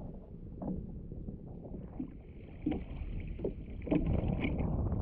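Water slapping against a fishing kayak's hull and wind on the microphone, with a few scattered short knocks. It grows louder about four seconds in.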